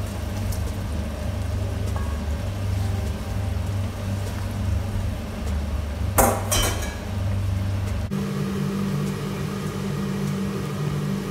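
Cubed potatoes tipped from a steel bowl into a pan of sauce and stirred with a wooden spoon, with a sharp clatter about six seconds in. A steady low hum runs underneath and changes to a higher drone about eight seconds in.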